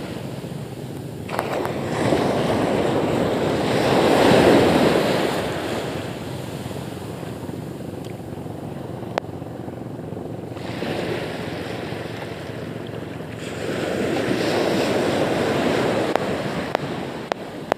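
Small waves breaking and washing up the beach, the surf swelling twice, with wind buffeting the microphone.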